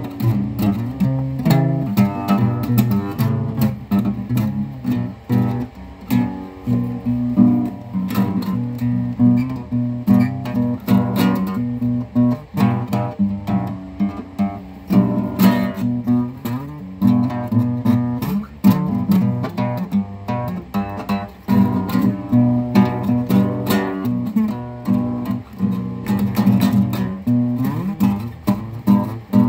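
Acoustic guitar music, a continuous run of plucked and strummed notes.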